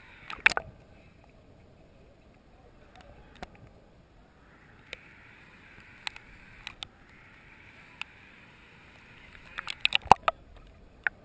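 Underwater sound picked up through a camera housing: a faint watery hiss broken by sharp clicks and knocks, a quick cluster about half a second in, a few single ones, and another burst of clicks near the end.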